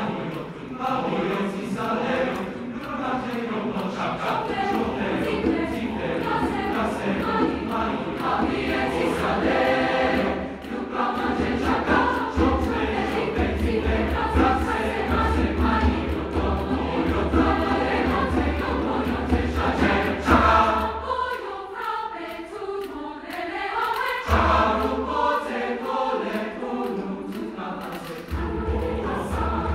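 Large massed choir singing in many parts, with a deep low layer underneath through much of the middle that drops away for a few seconds about three-quarters of the way through, when the texture thins.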